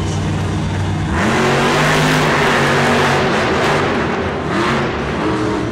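Monster truck engines revving hard, rising in pitch about a second in and again twice near the end.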